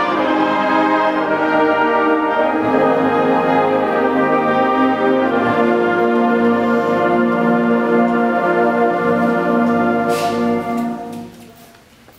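Large concert wind band holding sustained, brass-heavy chords, then releasing them about eleven seconds in so that the sound dies away in the hall's reverberation.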